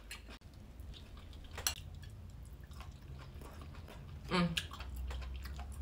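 Chewing of food close to the microphone, with a few sharp mouth clicks and a short hum of the voice about four and a half seconds in.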